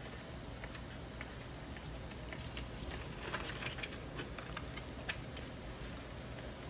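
Faint pattering and scattered light ticks from a steamer pot of live blue crabs as spicy crab seasoning is shaken over them, above a low steady hum.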